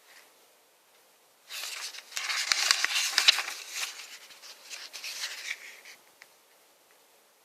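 Rustling of packaging being handled, full of small crackles, starting about a second and a half in and dying away after about four seconds.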